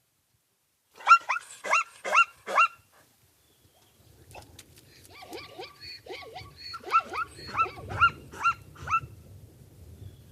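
An animal giving short, high yelping calls in quick series: a burst of about five, then after a pause a longer run of them over a low background noise.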